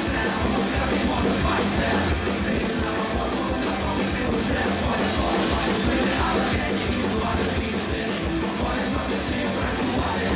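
Live punk rock band playing loud, with a male lead singer shouting the lyrics over electric guitar and backing vocals.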